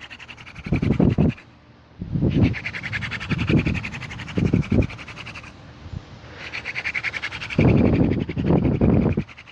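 Hand-drill fire-making: a horseweed spindle spun hard between the palms grinds and squeaks in its burned-in hole in an eastern red cedar hearth board, in fast back-and-forth strokes. The spinning stops briefly twice, about a second and a half and five and a half seconds in.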